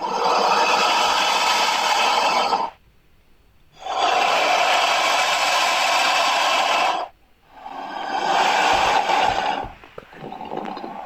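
Creature sound effects of the Alien and Predator film kind: three long, harsh, raspy cries separated by short silences, then a quieter, broken rasp near the end.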